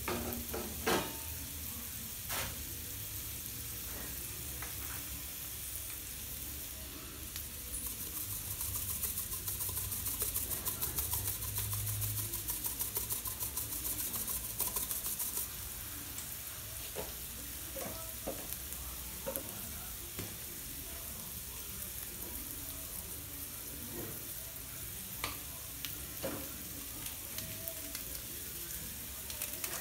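Sliced onions and tomatoes sizzling in butter on a flat tawa, with a wooden spatula scraping and tapping the pan as they are stirred. The sizzle grows louder and denser for several seconds midway.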